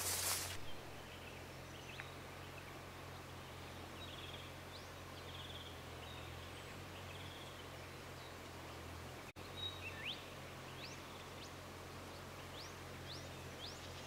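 Faint outdoor ambience: scattered short, high bird chirps, more frequent in the second half, over a steady low hum, with a brief dropout about nine seconds in.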